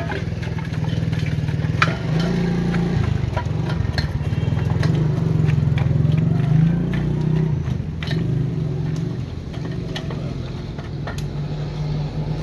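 An engine running steadily, with a few sharp clicks and knocks from a metal pick chipping a block of ice.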